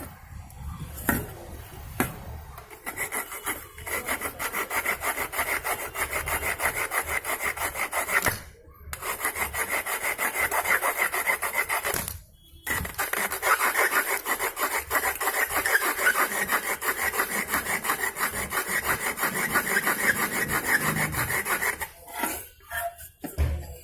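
Hand file rasping on the lower collar of a replacement microwave magnetron, taking it down so it will seat in the oven's mounting slot. It goes in quick, even back-and-forth strokes, several a second, with two brief pauses.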